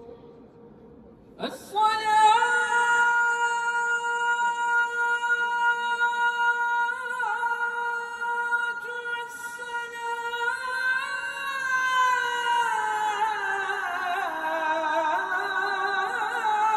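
A single male voice chanting a sala (Turkish religious call) unaccompanied: it starts about a second and a half in on a long held high note with small ornamental turns, then slides down through a run of melismatic turns near the end.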